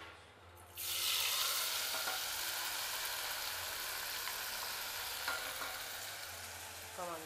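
Hot oil in a cooking pan bursts into loud sizzling about a second in as ingredients go in, then keeps frying with a steady hiss that slowly fades.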